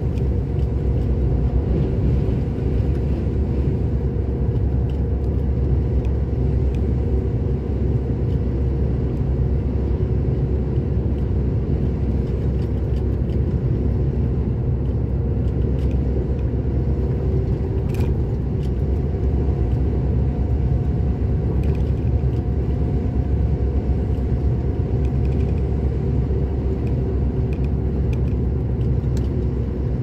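Steady engine and tyre rumble of a vehicle driving along the highway, heard from inside the cab, with a steady low hum and a single light click about two-thirds of the way through.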